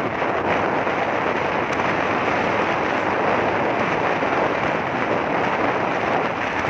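Steady rush of wind buffeting the microphone on a moving motorcycle, with road and engine noise beneath it.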